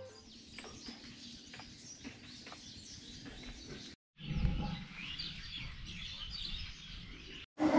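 Birds chirping over faint outdoor background noise, cut off by a brief dropout to silence about four seconds in and again just before the end.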